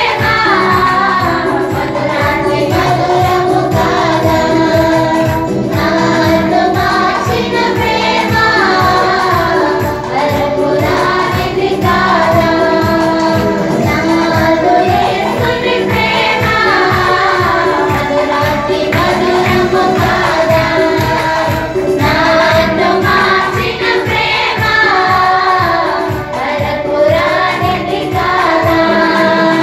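A choir of women singing a hymn together through microphones, over a steady beat.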